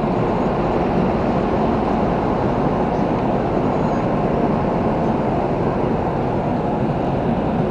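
Engines of the ferry Polonia running as she arrives in port, a loud, steady low rumble.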